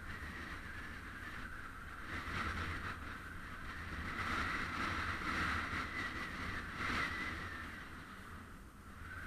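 Muffled wind and road noise on a bicycle-mounted camera's microphone while cycling, swelling louder through the middle.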